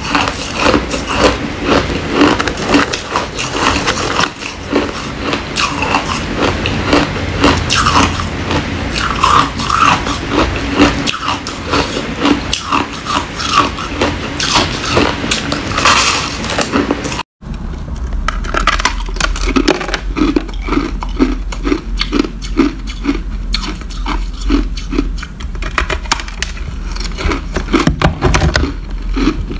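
Crushed ice being bitten and crunched between the teeth: dense, crisp, loud crunches. After a brief dropout partway through, slower and duller rhythmic crunching of ice at about two a second, over a low steady hum.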